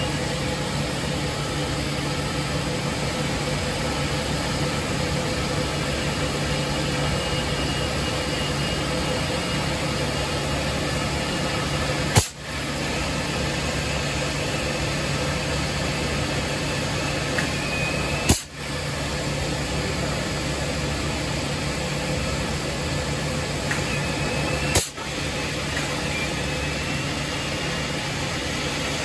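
Steady industrial machinery noise with a low hum. A faint high whine comes and goes several times, and three sharp clicks, about six seconds apart, each briefly cut the sound.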